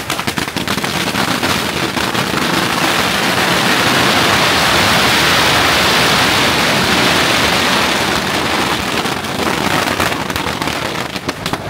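A huge barrage of firecrackers going off in a rapid, continuous crackle. It opens as dense separate cracks, merges into an unbroken wall of bangs through the middle, and thins back to separate cracks near the end.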